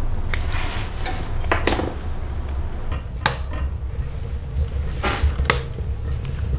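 Small stainless-steel G-Stove wood stove being fed and burning: a handful of sharp knocks and crackles from wood against the metal firebox, spread through, over a steady low rumble.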